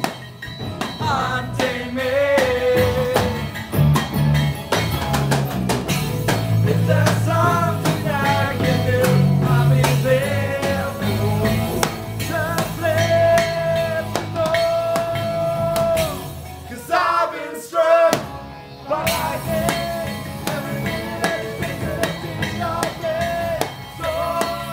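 A rock band playing an 80s-style rock song live: drum kit, electric guitars and a singing voice, with a short break in the music about two-thirds of the way through.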